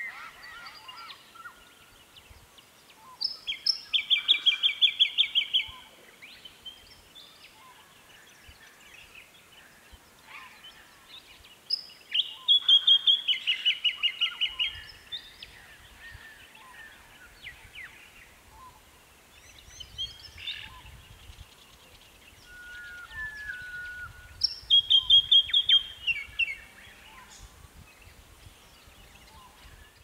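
Jacky Winter singing: three loud phrases, each opening with a short high note and running into a quick string of about a dozen repeated notes. Other birds call faintly between the phrases.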